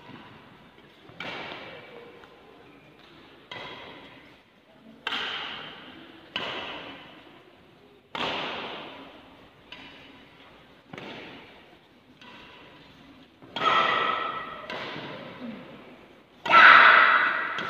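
Badminton racket strikes on shuttlecocks in multi-shuttle practice, a dozen or so sharp hits about every second and a half, each ringing on in the echoing indoor hall. The last two hits are the loudest.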